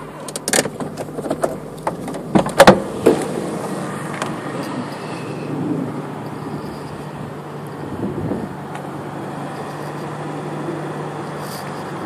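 Car driving slowly with a steady engine hum, with a cluster of loud sharp knocks and rattles in the first three seconds.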